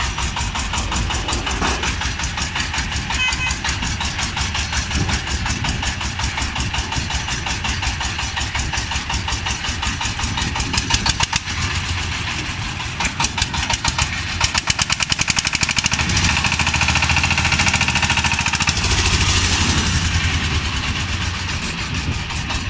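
Diesel engine of a three-wheeled cargo tricycle running with a rapid, even knocking beat, then speeding up as the tricycle pulls away, getting louder in the last several seconds.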